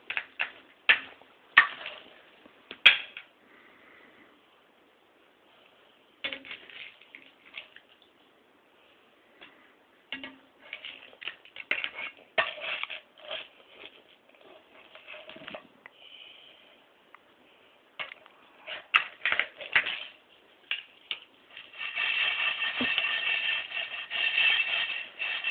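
Small hard candies clicking and rattling against a nonstick frying pan as it is shaken and handled, in short irregular spells with quiet gaps. Music starts near the end.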